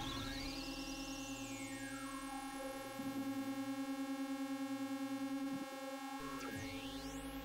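Electronic synthesizer music: a steady pulsing low tone under a stack of held higher tones, with slow sweeping glides in pitch and a steep rising sweep near the end.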